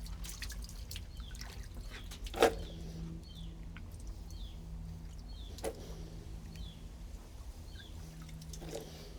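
Handling knocks at a pool pump's strainer basket housing: one sharp knock about two and a half seconds in and two softer ones later, over a steady low hum. A bird chirps about once a second.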